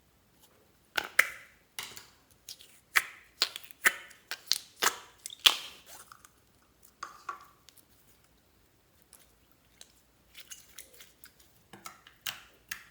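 Slime being squeezed and mixed by hand, giving irregular sharp pops and crackles. They come thickly for the first several seconds, ease off, then pick up again near the end.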